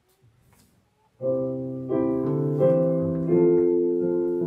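Piano playing the postlude that closes a church service, starting about a second in after near quiet: full chords struck and held, a new chord about every three quarters of a second.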